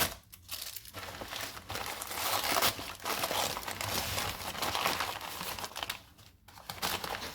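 Packing material crinkling and rustling as a parcel is unpacked by hand, a dense, continuous rustle from about a second in that dies down near the end.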